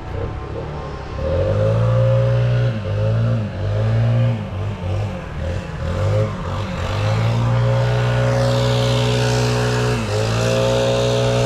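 An engine revving up and down several times, then held at a steady speed, with a brief dip in pitch near the end before it picks back up.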